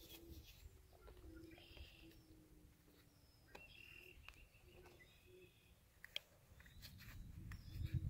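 Near silence: faint outdoor background with a few faint bird chirps and a single small click about six seconds in.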